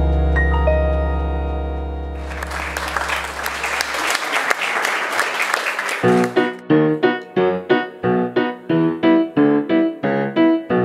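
Music: a held chord over a deep bass note fades out while applause comes in about two seconds in. From about six seconds a piano plays a quick run of short, repeated notes, about three a second.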